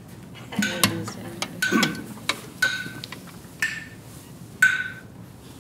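Phone metronome app ticking steadily about once a second, each tick a short, sharp click with a high tone. Between about half a second and two seconds in, a classical guitar is knocked and rustled as it is lifted into playing position.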